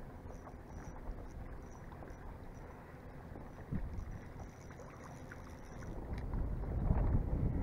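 Water lapping and sloshing against a small fishing raft, with wind rumbling on the microphone, getting louder toward the end.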